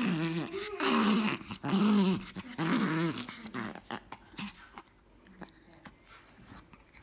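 Pomeranian play-growling, about four rising-and-falling growls in the first three and a half seconds, then quieting to faint clicks and snuffles.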